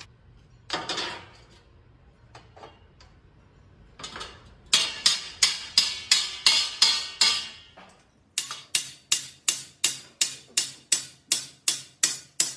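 Hand hammer striking a welded steel rim band held over the anvil arm of a rim-rolling machine, shaping the band. Sharp, ringing metal blows come at about three a second in two runs, the first from about halfway in and the second after a brief break near the end.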